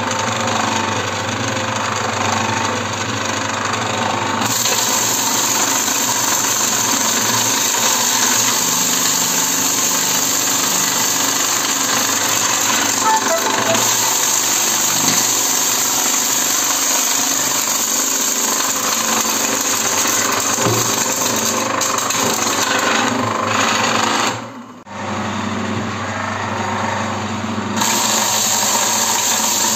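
AIP-10 perga-extraction machine running steadily, beating frozen bee-bread comb cuttings apart as they are fed through its hopper. The noise dips briefly about 25 seconds in.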